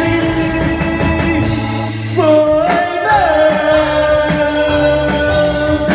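Vietnamese pop song: a singer holds a long note over the backing band, the pitch changing about two seconds in.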